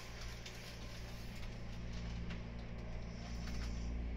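Meitetsu 9500 series electric train running, heard from inside the car behind the cab: a steady low motor hum under an even rumble, with a few faint clicks, growing slightly louder.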